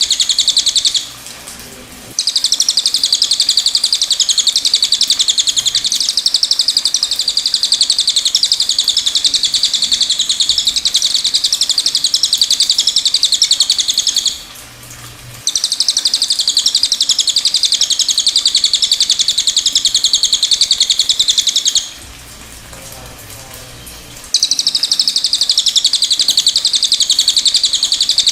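Cililin songbird singing a very rapid, high, continuous trill-like song in long bouts, with brief pauses about a second in, near the middle and about three quarters of the way through.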